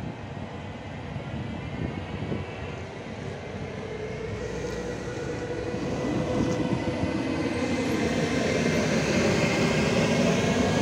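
Siemens Vectron electric locomotives and a container freight train passing: a steady rumble of wheels on rail with the whine of the traction motors in several steady tones. It grows louder over the second half as one locomotive comes close alongside.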